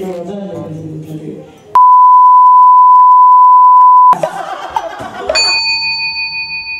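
A censor bleep: one steady, loud, high beep lasting a little over two seconds, masking a spoken remark. A bit over a second after it ends, a bell-like chime sound effect rings and slowly fades.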